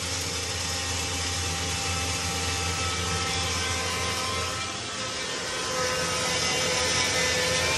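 Steady whirring of a motor-driven appliance running, with a low hum underneath and faint steady tones.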